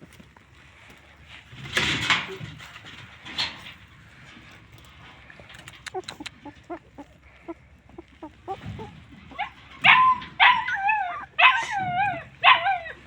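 Stray dogs whining and whimpering: a sharp louder sound about two seconds in and another a second and a half later, then a string of about five wavering, high-pitched whines in the last few seconds.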